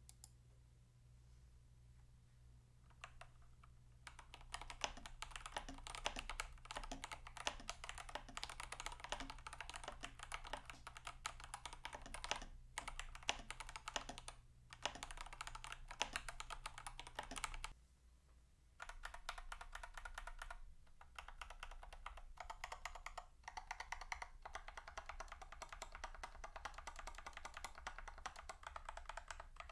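Fast typing on an IQUNIX OG80 Wormhole mechanical keyboard with stock, unlubed TTC Gold Pink linear switches and Cherry stabilizers: a dense run of keystroke clacks. It starts about three seconds in and stops briefly a few times.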